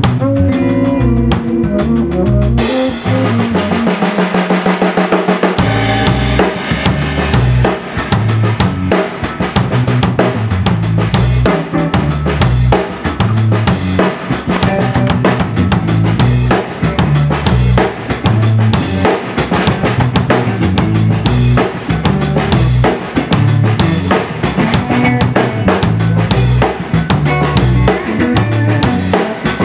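Live Latin band playing, led by a drum kit: kick drum, snare and rimshots drive a steady groove under bass notes and other instruments. The bass drops out for a few seconds near the start and then comes back in with the full band.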